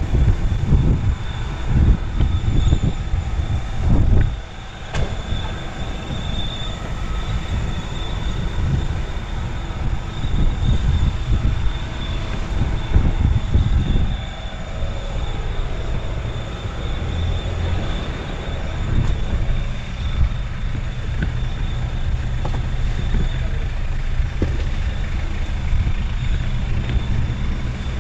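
Steady low engine and road rumble inside a delivery van's cab, with a faint steady high whine and an occasional knock or rattle.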